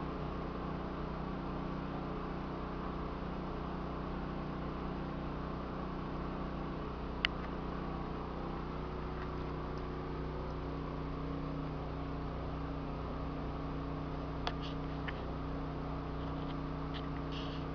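Steady mechanical hum with several fixed low tones, unchanging throughout. A single sharp click sounds about seven seconds in, and a few fainter clicks near the end.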